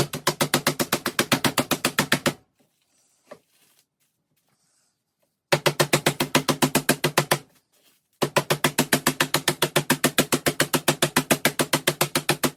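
Meat tenderizer mallet pounding a chicken breast through cling wrap on a board, in fast even hits of about eight a second. The pounding breaks off twice, for about three seconds and then for under a second, before going on.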